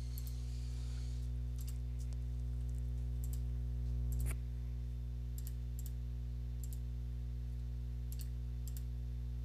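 Scattered computer mouse clicks and a few keystrokes, about one every second, over a steady low electrical hum.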